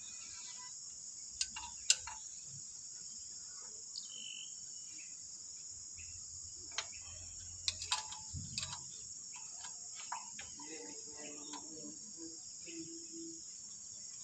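A steady high insect trill, cricket-like, over a few sharp metal clicks from a wrench and parts being handled on a Nissan engine's exposed valve gear. Two clicks come about a second and a half to two seconds in, and a small cluster follows around the middle.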